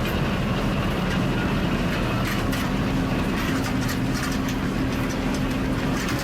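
Heavy machinery running steadily with a low engine drone, with scattered sharp crackles and clicks over it.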